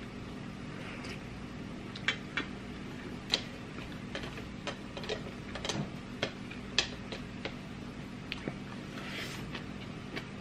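Close-up eating sounds: a mouth chewing food with irregular sharp smacks and clicks, about one or two a second, over a faint low steady hum.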